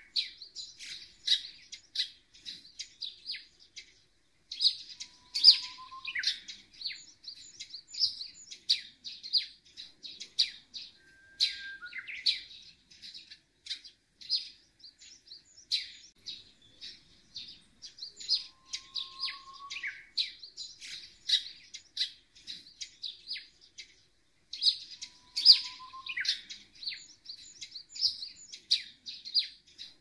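A dense chorus of small birds chirping rapidly and high, with a short, lower rising whistle every several seconds.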